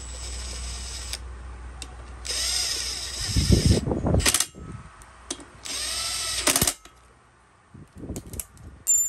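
Cordless drill-driver running in two short bursts of about a second each, with a loud rattling stretch between them, as it drives in the bolts of a brush cutter's muffler cover.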